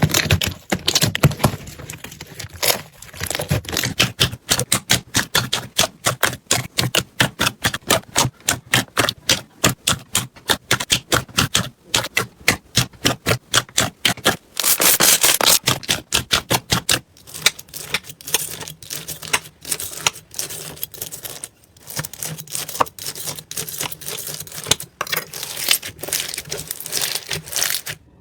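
Slime being squeezed and pressed by hand, giving rapid popping and crackling clicks, several a second, with a longer crunchy squish partway through.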